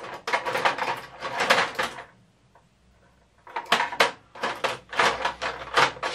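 Rummaging through tools for a screwdriver: a rapid clatter of hard objects knocking and clicking together, in two spells of about two seconds each with a short pause between.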